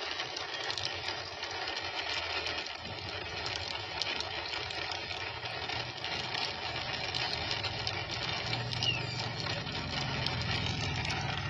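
Steady wind and road noise from a moving vehicle, with a low engine hum that grows stronger in the last few seconds.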